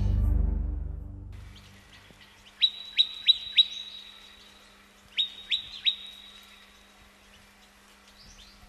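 Background music fading out, then a bird calling: two bouts of quick, sharp notes that each drop in pitch, four notes about two and a half seconds in and three more about five seconds in.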